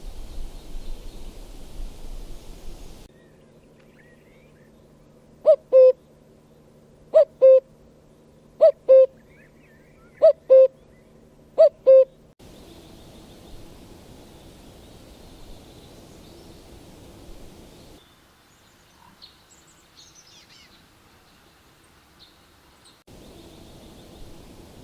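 A bird hooting: five loud two-note calls, each pair repeated about every one and a half seconds, over a steady low hum. Before and after the calls there is plain outdoor ambience, with faint high bird chirps near the end.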